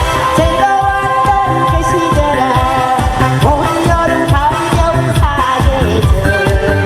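A singer performs a Korean pop song live, holding long wavering notes over accompaniment with a steady beat.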